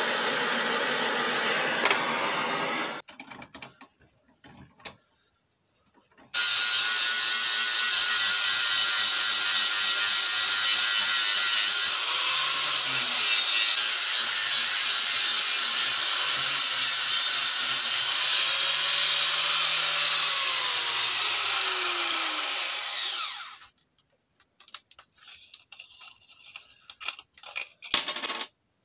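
A gas blowtorch hisses for about the first three seconds. After a short pause a handheld angle grinder starts and grinds metal held in a vise for about seventeen seconds with a steady high whine, then winds down with falling pitch. Scattered clicks and knocks of handling the grinder follow.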